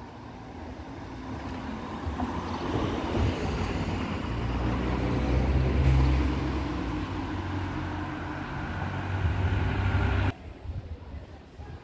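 Road traffic: a motor vehicle driving along the street, its engine and tyre noise building over a few seconds and loudest around the middle. It cuts off suddenly near the end.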